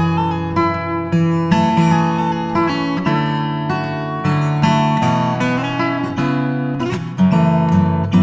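Background music: acoustic guitar plucked and strummed, with chords changing every second or so.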